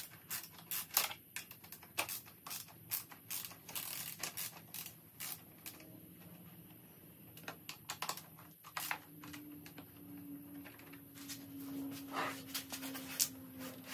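Ratchet wrench clicking in short, irregular runs as the 10 mm bolts under a motorcycle's rear fender are loosened.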